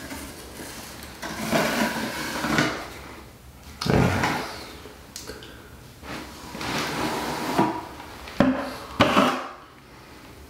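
Small trowel scraping and spreading Laticrete Hydro Ban liquid waterproofing over the cement backer board of a shower curb, in a series of short strokes, with two sharp knocks near the end.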